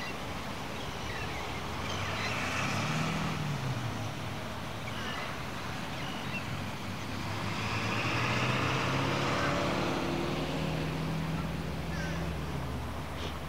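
Road traffic passing: one vehicle goes by about three seconds in, and a longer engine swell builds and fades from about seven to twelve seconds.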